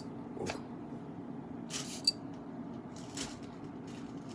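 Cologne atomizer being sprayed: a short spritz hiss about two seconds in, ending with a click of the pump, and a fainter puff about a second later.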